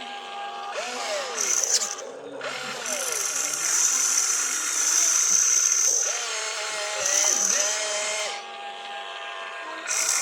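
Small electric motors and gearboxes of a radio-controlled construction toy whirring. The whine glides up and down in pitch as the motors speed up and slow down, with a stop-start rhythm over several seconds.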